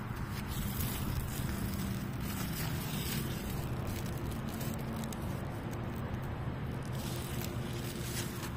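A steady low motor hum, with light rustling and crackling from the plants and handling.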